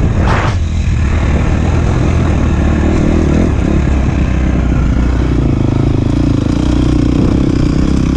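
KTM motocross bike engine running under a rider on a dirt track: a quick rev about half a second in, then a steady drone.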